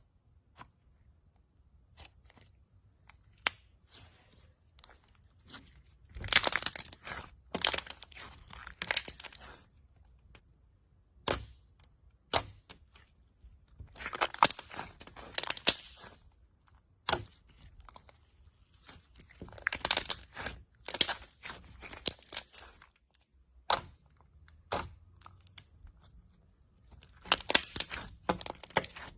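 Slime being squeezed and pressed by hand, giving spells of dense crackling, crunchy popping every few seconds, with single sharp clicks in between.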